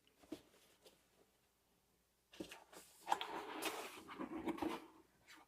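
Cardboard packaging being opened and handled: a faint rustle and scrape with small clicks, starting about two seconds in and lasting a couple of seconds.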